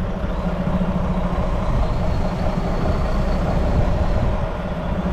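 Semi truck's diesel engine running steadily with a low rumble.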